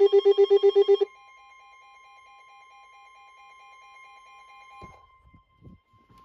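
A weather radio's alert alarm sounds a loud, rapidly pulsing electronic tone, about nine pulses a second, signalling a severe thunderstorm warning. It cuts off about a second in, leaving a faint steady tone until about five seconds in, then a few soft bumps.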